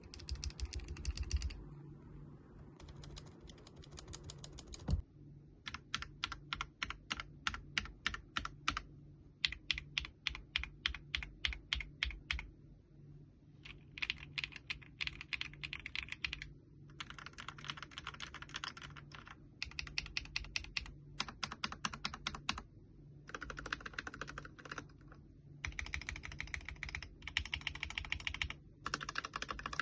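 Mechanical keyboard being typed on as a sound test, in bursts of rapid keystrokes with short pauses between them, over a faint steady low hum.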